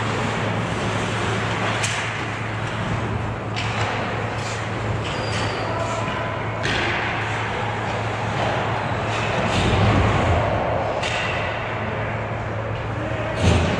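Ice hockey play on a rink: sharp knocks of sticks, puck and boards every few seconds over a steady noisy wash and low hum, with the loudest knock near the end.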